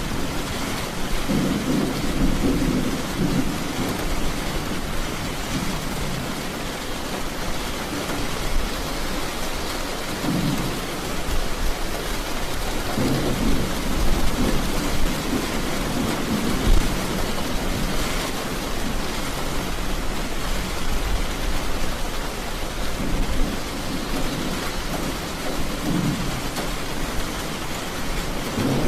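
Thunderstorm: steady rain with thunder rolling low several times, swelling and fading.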